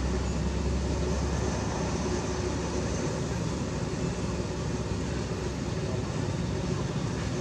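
Steady background rumble and hiss, with a deeper low hum that fades about a second and a half in.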